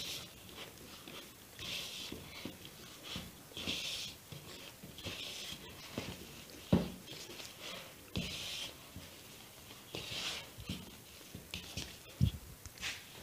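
Hands kneading crumbly cookie dough in a bowl: soft squishing, rustling strokes about once a second, with two dull thumps, one about two-thirds of the way in and one near the end.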